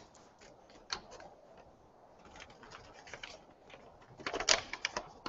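Paper rustling and crackling as folded entry slips are tipped out of an envelope into a hat, in scattered short crinkles with the loudest flurry about four and a half seconds in.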